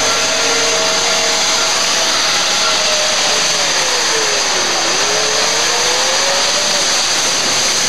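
Off-road 4x4's engine revving hard as it churns through deep mud, over a loud hiss. Its pitch sinks about halfway through and climbs again.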